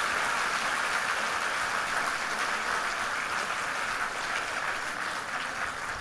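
Audience applauding, the applause thinning out near the end.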